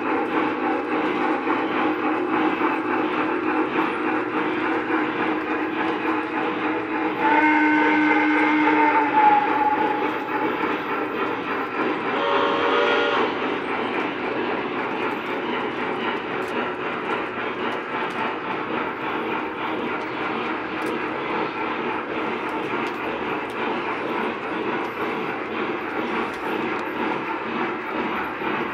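Lionel O-gauge model trains running on track with a steady rumble. About seven seconds in a locomotive's sound-system steam whistle blows for about two seconds, and a second, shorter whistle sounds a few seconds later.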